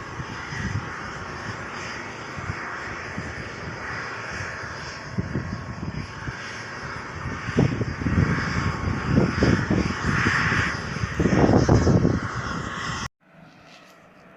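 Helicopter running overhead, a steady engine and rotor noise that grows louder about two-thirds of the way in, with wind buffeting the microphone in uneven low gusts. It cuts off abruptly near the end.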